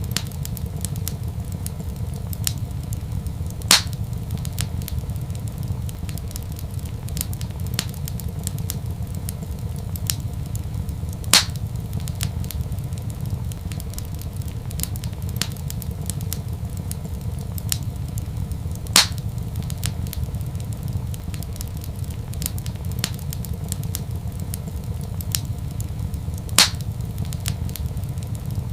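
Wood fire crackling in a fireplace over a steady low rumble, with many small crackles and four louder pops about every seven and a half seconds.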